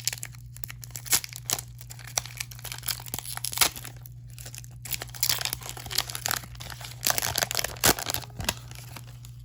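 Foil Pokémon TCG booster pack wrapper being crinkled and torn open by hand: irregular sharp crackles and rustles throughout, over a steady low hum.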